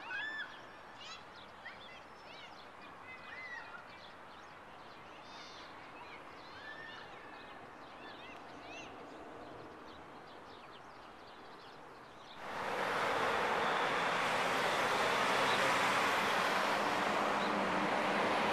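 Scattered bird chirps over faint outdoor background. About twelve seconds in, this cuts suddenly to loud, steady street traffic noise.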